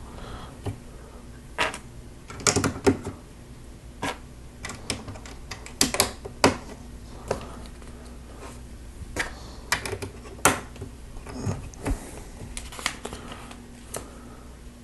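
Lego bricks and plates being handled and pressed together: irregular sharp plastic clicks and snaps, a few louder than the rest.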